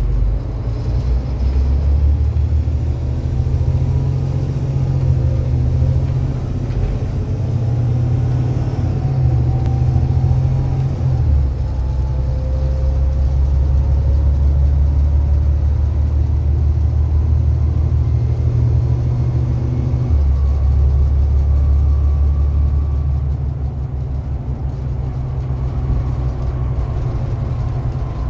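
Volvo B7TL double-decker bus's six-cylinder diesel engine heard from inside the lower deck, working hard as the bus accelerates on kickdown. A rising whine builds over the first half. The engine note shifts abruptly twice, about 11 and 20 seconds in, as the automatic gearbox changes gear, and the engine eases off a little near the end.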